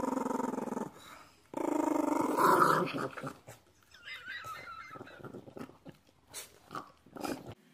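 Small dog growling in two long spells, the second louder, then wet licking and smacking with quick irregular clicks as it eats from a paper cup.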